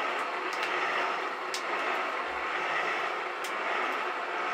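Elliott metal shaper running, its ram stroking the cutting tool back and forth over a workpiece held in the vise. A steady machine clatter with a sharp click about every two seconds.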